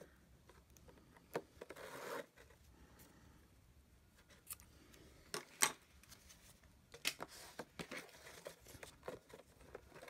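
Faint handling sounds of craft work: small scissors cutting through a ribbon about two seconds in, then scattered light taps and clicks as a paper gift box and its ribbon are turned over and pressed down on a cutting mat.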